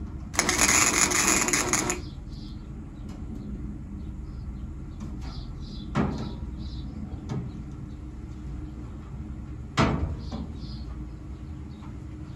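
A welder laying a short tack weld on a car's steel quarter panel: a loud crackling burst of about a second and a half, part of a repeated push-and-tack routine to hold the panel flush. Two sharp knocks follow later.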